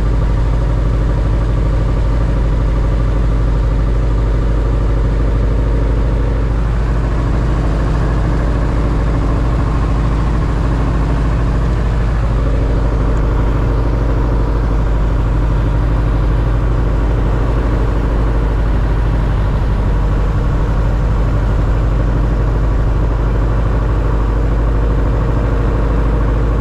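Two-seat light aircraft's piston engine and propeller droning steadily, heard from inside the cabin, with small shifts in pitch about 7 and 13 seconds in.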